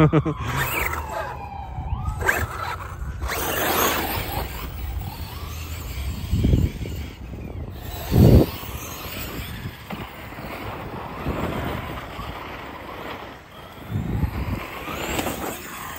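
Brushless RC truck driving over grass and gravel, with rushes of motor and tyre noise as it speeds up and slows down several times. A single whine falls steadily in pitch near the start.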